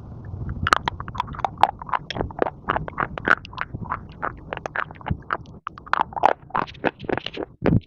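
Crunchy baked clay being bitten and chewed: dense, irregular crackles and snaps.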